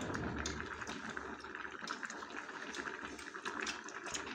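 Hotpot broth boiling on the table, a steady bubbling hiss with fine crackles.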